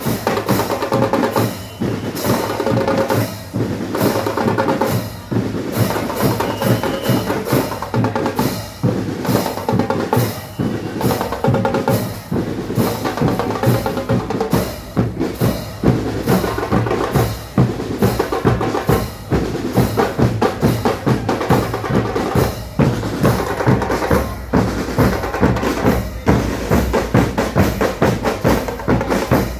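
A band playing music driven by drums: bass drum and snare strokes in a steady beat, with sustained pitched instruments underneath.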